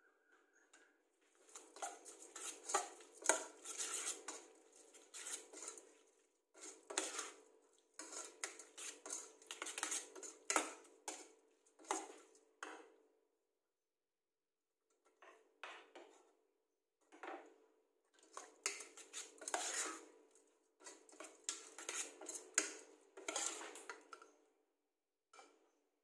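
Metal spatula scraping and clinking against a stainless steel saucepan as sliced meat is stirred and tossed, in two long bouts of mixing with a short pause about halfway through.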